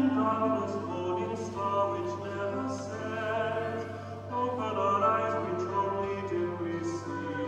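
Entrance hymn: sung melody with musical accompaniment, moving in long held notes.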